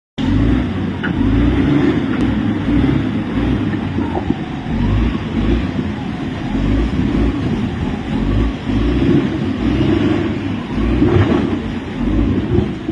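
Tractor engine running, its low sound pulsing unevenly in level.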